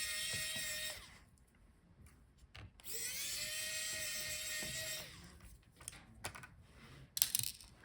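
Small electric screwdriver backing out the laptop's motherboard screws: a steady motor whine that runs about a second, stops, then runs again for about two seconds. Light clicks and a short clatter of small parts follow near the end.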